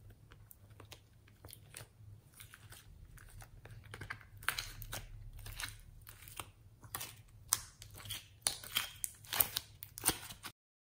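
Fingers squeezing and pulling thick slime in a plastic mould, giving sticky crackles and pops. They are sparse at first, come quicker and louder from about four seconds in, then stop abruptly shortly before the end.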